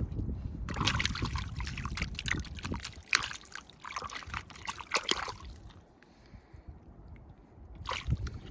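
Water splashing and sloshing in a dense run of small splashes for about five seconds, then dying down, with one more short splash near the end.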